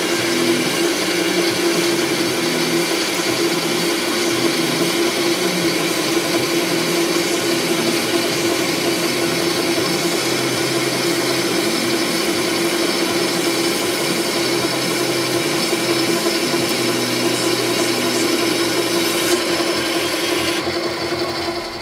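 Metal lathe running steadily, its carbide-insert tool turning a metal workpiece: a constant machine whine with a scraping cutting noise over it.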